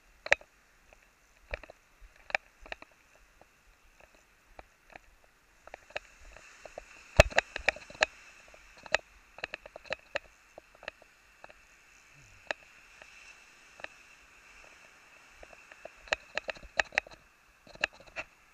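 Scattered sharp clicks and knocks of gear and camera handling while a fish is reeled in and landed on light spinning tackle, the loudest knock about seven seconds in. Faint surf hiss underneath, swelling for several seconds in the middle.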